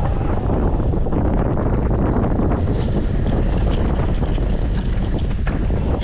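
Steady wind rush on an action camera's microphone as an electric mountain bike is ridden along, with tyre noise over grass and dirt.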